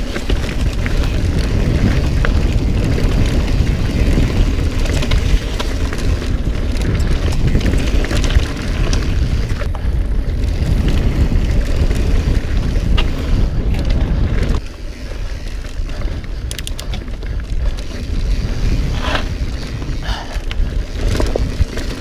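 Wind buffeting an action camera's microphone, over the rumble and rattle of a mountain bike riding fast on a dirt singletrack, with scattered clicks from the trail. The low rumble drops noticeably about two-thirds of the way through.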